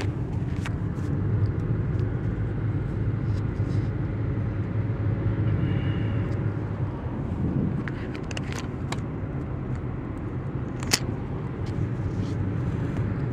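Steady low rumble of a car driving, heard inside the cabin, with a few faint clicks and a sharper click about eleven seconds in.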